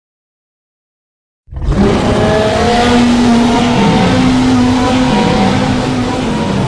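Tarbosaurus roar sound effect: one long, loud, rough roar with a steady low pitch, starting suddenly about a second and a half in after silence.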